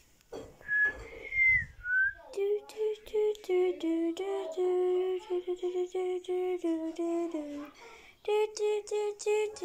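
A few short, high whistled notes about a second in, then a child's voice singing a tune note by note, pausing briefly near the end before going on.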